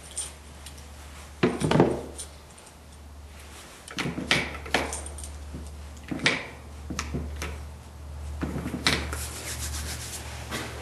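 Handling noises at a wooden shooting bench: scattered clicks, knocks and rubbing as cartridges and gear are handled by the ammo box, with a low steady hum underneath.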